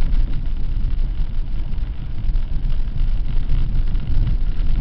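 Cabin noise of a 4x4 driving along a rough dirt track: a steady low rumble of engine and tyres, with many small knocks and rattles from the bumps.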